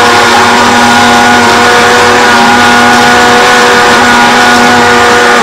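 Electric countertop blender running steadily at full speed, puréeing a watery onion marinade until smooth. It is switched off at the very end and its motor begins to wind down in pitch.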